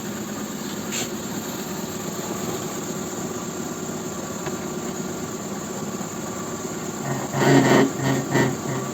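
A car's wheel spinning off the ground with the drivetrain running: a steady mechanical hum with a few steady tones. About seven seconds in, a louder pulsing joins it, a few beats a second.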